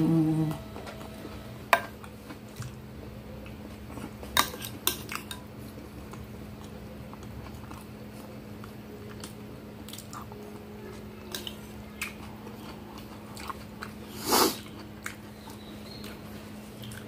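Eating sounds: a metal spoon clicking against a glass dish, with chewing of instant noodle soup and quail eggs as scattered small clicks. There is a brief hummed "mm" at the start and one louder, short rush of noise about 14 seconds in, over a steady low hum.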